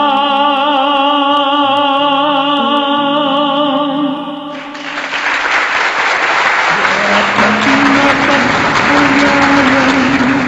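A man's voice holds a long sung note with vibrato over a karaoke backing track. Partway through, the singing stops and a dense, even rush of noise fills the rest, with the backing music going on underneath.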